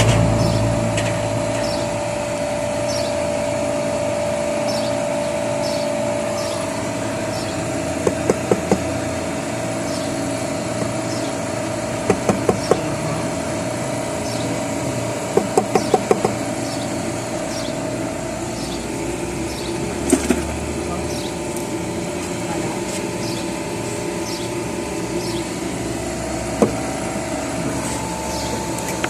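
Steady machine hum with several short runs of three or four sharp knocks, a few seconds apart, and single knocks later on.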